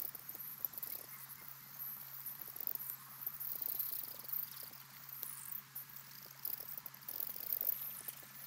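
Faint outdoor pond ambience: scattered high-pitched chirps and trills over a soft hiss and a low steady hum.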